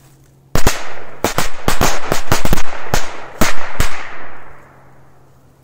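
Firecrackers going off: about a dozen sharp bangs in quick, irregular succession over some three seconds, starting about half a second in. Echo trails off after the last bang.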